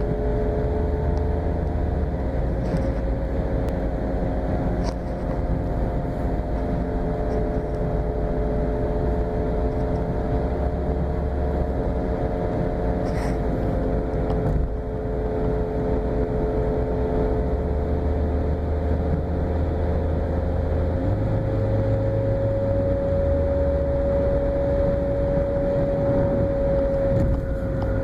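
2013 Nissan Sentra making a strange, steady whining noise: a few close tones that drift slightly in pitch, over the car's low running rumble.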